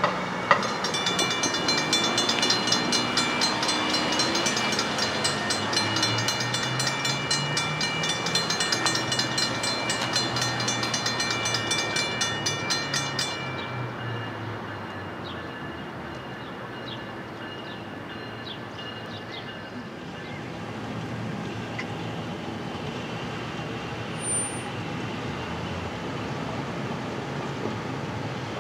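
Railroad grade-crossing warning bells ringing rapidly while the crossing gates come down, then stopping abruptly about halfway through once the gates are down. After that only a steady low rumble remains.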